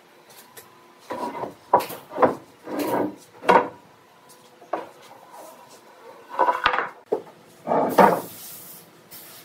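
Heavy rough-sawn timber plank being pulled off a stack: wood scraping against wood in a series of short strokes, then a knock and a longer scrape as it is set down on the concrete floor near the end.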